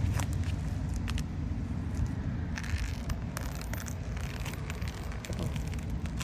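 Scattered scrapes and clicks of hand tools working on roof shingles, over a steady low rumble.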